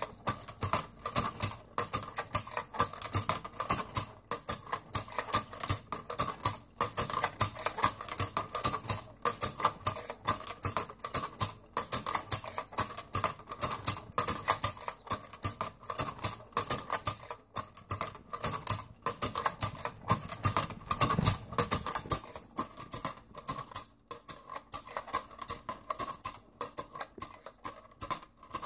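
Wind-up clockwork gymnast toy running, its figure flipping around a wire trapeze bar: a rapid, continuous clicking and rattling, like fast typing.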